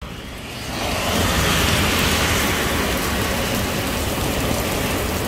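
Heavy rain pouring onto pavement and a wet road, a steady hiss that grows louder about a second in as a door is pushed open to the outside.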